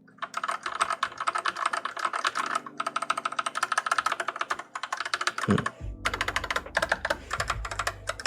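Typing sound test on an AKKO Tokyo World Tour 3087 mechanical keyboard: rapid key clicks in fast runs with a few short breaks. The owner finds the keyboard sounds slightly hollow, for want of dampening.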